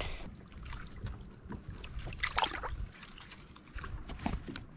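Boat ambience: water lapping against the hull over a low wind rumble, with a few small knocks and clicks about two and a half seconds in and again near the end.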